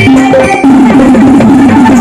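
Loud Indian folk music with fast hand-drum beats and a quick, repeating melody line.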